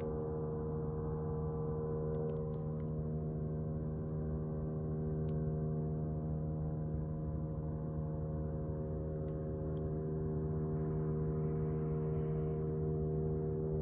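A steady low hum of unknown origin, made of several fixed tones stacked together, droning on without a break; the uploader, with no trucks or boats around, guesses it is the 'Earth hum'.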